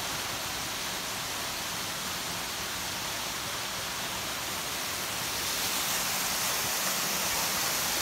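Small waterfall and rocky stream rushing, a steady hiss of falling and running water that gets a little louder about two-thirds of the way through.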